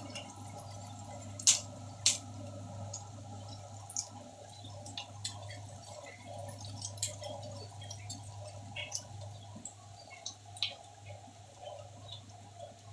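Sliced onions frying in hot oil with whole spices, sizzling and crackling with scattered pops, two louder ones about a second and a half and two seconds in. A steady low hum sits underneath.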